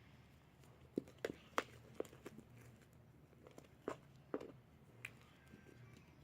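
Sticky homemade fluffy slime (glue, activator and shaving cream) being squished and pulled by hand: irregular wet pops and clicks, bunched from about one to two and a half seconds in and again around four seconds in.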